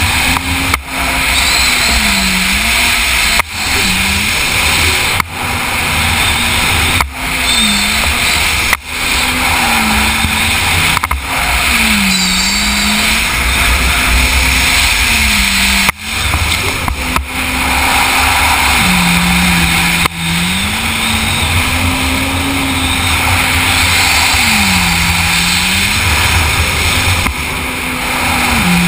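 Yamaha FZR WaveRunner's supercharged four-stroke engine running hard. Its pitch rises and falls over and over as the throttle is worked around the course, with several brief, sudden drops in loudness. A steady rush of wind and water spray is heard over the helmet microphone.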